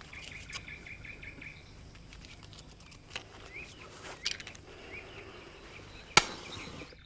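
Small birds chirping and twittering over a soft outdoor background, with a quick run of repeated chirps at the start and scattered single chirps after. About six seconds in comes one sharp, loud click.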